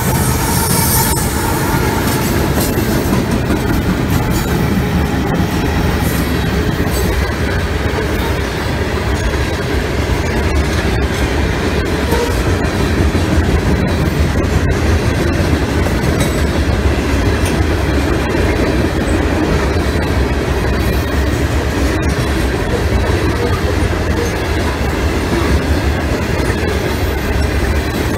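A CSX freight train rolling past at close range, first the rear of its diesel locomotive consist and then a long string of covered hopper cars. Their wheels make a steady, loud rumble and clatter on the rails.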